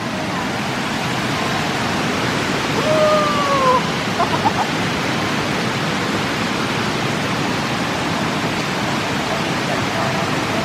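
Waterfall water rushing in a steady, even roar. About three seconds in, a single brief falling call is heard over it.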